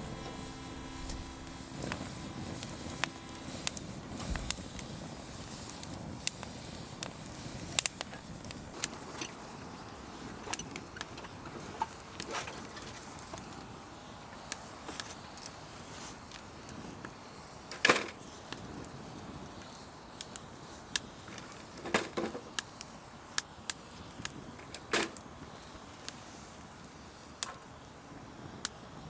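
Wood campfire crackling: irregular sharp pops and snaps over a low hiss, the loudest about eighteen seconds in.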